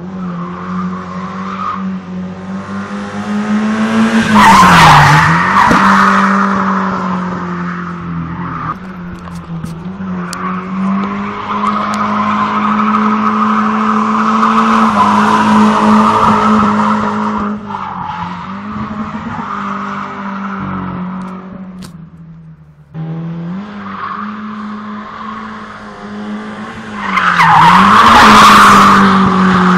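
BMW E21 drifting: the engine is held at steady high revs while the tyres squeal in long slides. The squeal is loudest twice, about five seconds in and again near the end, as the car slides past, with the engine note dipping briefly each time. The sound breaks off briefly and starts again abruptly about two-thirds of the way through.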